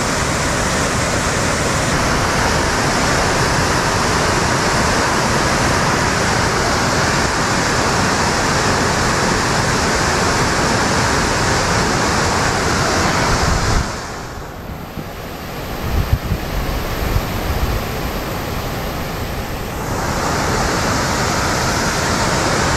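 Steady rush of flowing river water, an even hiss. About two-thirds of the way through it drops away for several seconds, with a few low bumps, then comes back.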